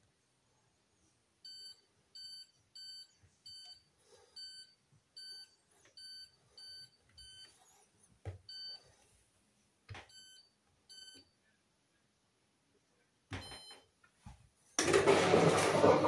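Hoover washing machine control panel beeping as its buttons are pressed: about sixteen short identical beeps, one per press, as the spin speed is stepped up. Near the end, a longer beep, then a sudden louder noise with a steady low hum.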